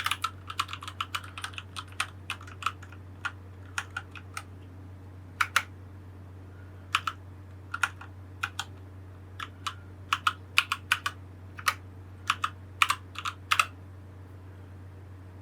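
Keys being pressed on a Keychron C1 wired mechanical keyboard: a quick run of keystrokes for the first few seconds, then scattered single and paired presses that stop shortly before the end.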